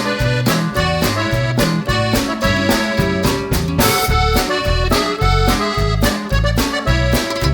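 Upbeat instrumental background music with a steady beat and a bouncing bass line under sustained melody notes.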